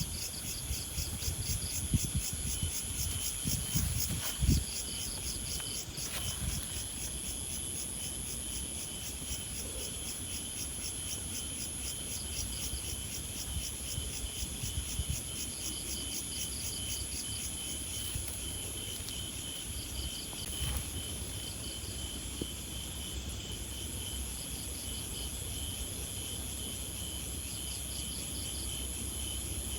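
Insects chirring in grass: a steady high-pitched buzz with rapid, evenly pulsed chirps running over it. A few low thumps come about two and four seconds in.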